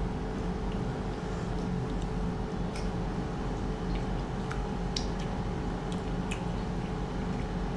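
A steady mechanical hum, like a fan or air-conditioner motor, with a few faint, scattered clicks.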